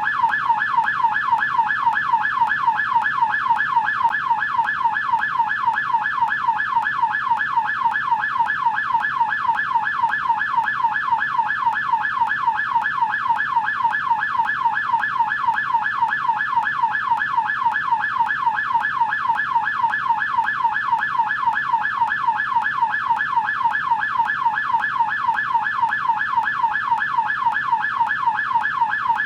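American police car yelp siren: an electronic wail sweeping rapidly up and down in pitch several times a second, steady and unbroken.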